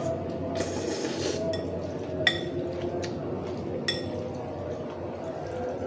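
Metal fork and spoon clinking against a ceramic bowl of chicken noodles: a few sharp ringing clinks, the loudest a little past two seconds in and another near four seconds. Near the start, a short slurp of noodles.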